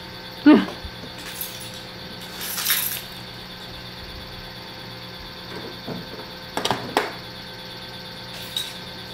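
Travel trailer entry door being unlocked and opened: a sharp click of the key turning in the lock, a short metallic rattle as the door swings open, then a few quick clicks of the latch and screen door, over a steady hum.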